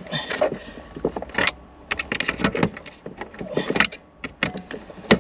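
Car radio head unit being worked loose and pulled out of a Saab 9-3 dashboard with a pen used in place of release pins: a run of irregular plastic and metal clicks, knocks and rattles.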